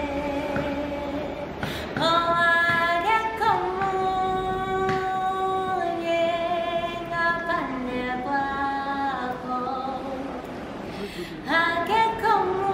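Song on the soundtrack: a singing voice holds long notes that step up or down in pitch every second or two, with light musical backing.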